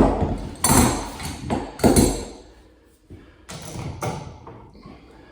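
Tools being handled: a series of about five knocks and clatters, the loudest at the start and about two seconds in, with weaker ones later.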